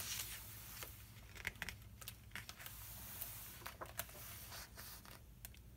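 A page of a hardcover picture book being turned and smoothed flat by hand: faint paper rustling and scattered soft taps.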